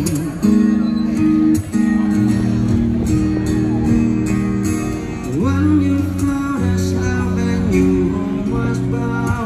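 A song playing: a singing voice over instrumental backing, with long held notes.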